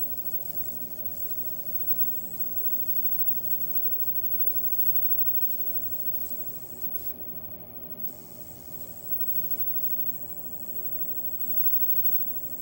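Steady hiss with a faint low hum from a 1976 Zenith Chromacolor TV chassis switched on with its high-voltage section running, the flyback energised with its output disconnected from the tripler.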